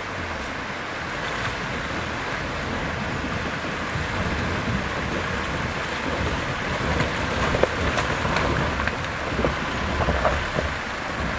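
Isuzu pickup truck driving through a shallow rocky river: a low engine rumble over steadily rushing, splashing water, growing a little louder as it comes closer. A few short knocks in the second half as the tyres climb out over the stones.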